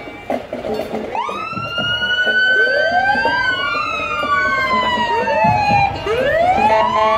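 Several emergency-vehicle sirens wailing at once, their pitches rising and falling slowly and out of step with each other, starting about a second in.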